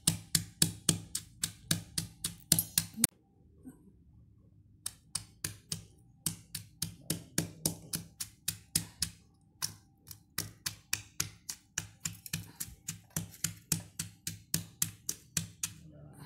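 Stone pestle pounding red chillies and spices in a volcanic-stone mortar, grinding them to a paste. Sharp knocks come about three a second, with a pause of about two seconds about three seconds in.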